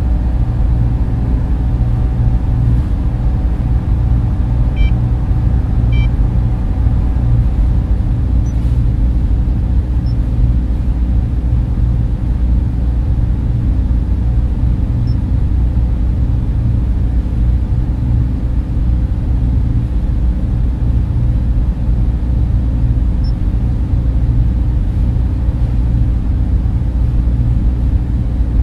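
Steady low ambient hum of a sci-fi library soundscape, with a few faint, brief high electronic blips about five and six seconds in.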